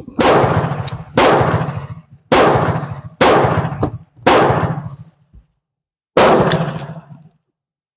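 Six pistol shots fired one at a time, about a second apart, with a longer pause before the last. Each shot is followed by an echo that dies away over most of a second.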